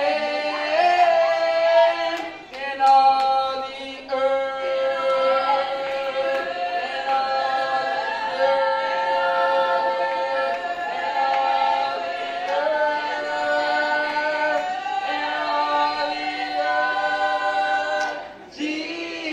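A small vocal group singing a cappella in harmony, holding long notes. The voices break off briefly near the end and come back in.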